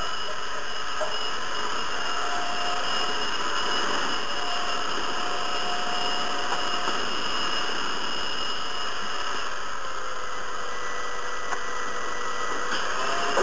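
Hair dryer running steadily: a constant rush of air with a steady high-pitched motor whine.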